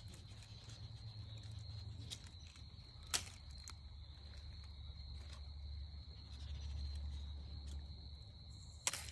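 Crickets or other insects trilling steadily on one high note, over a low outdoor rumble. Two sharp clicks break in, one about three seconds in and one near the end.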